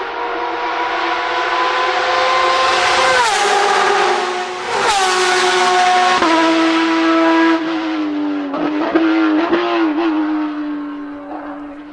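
Porsche 911 RSR (991.2) race car's 4.0-litre flat-six with open exhaust, loud at full throttle as it comes up the straight. Its pitch drops as it passes, then steps down several times with short blips as it brakes for the corner, fading as it pulls away.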